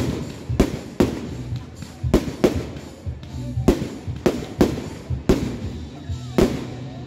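Aerial firework shells bursting overhead in a rapid, uneven string of sharp bangs, about two a second.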